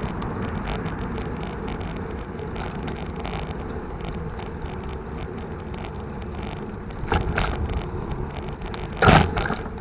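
Mountain bike being ridden: a steady rumble of tyres and wind on the microphone, with two short sharp rattles near the end, the second louder.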